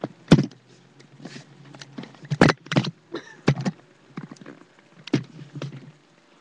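A dog and a person tussling right against the microphone: a quick, irregular string of short knocks, thumps and scuffles.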